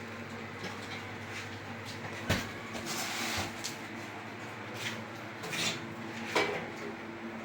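A few sharp knocks and clicks, the loudest with a dull thump about two seconds in, over a steady low hum.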